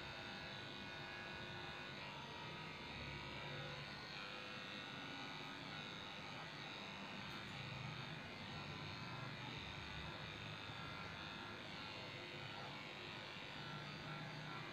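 Electric dog grooming clippers running with a steady buzz, shaving a Shih Tzu's coat down.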